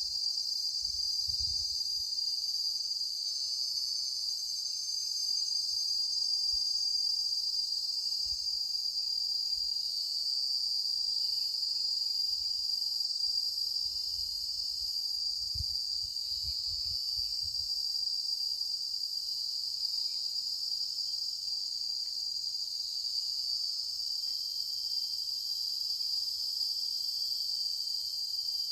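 Forest insect chorus: a continuous, steady high-pitched drone of insects, with fainter higher whirring layered over it and a few soft low rumbles.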